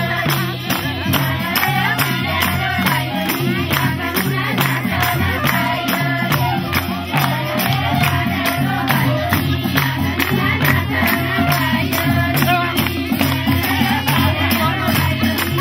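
A group of women singing a Nepali folk song together, with a madal hand drum and handclaps keeping a fast, even beat.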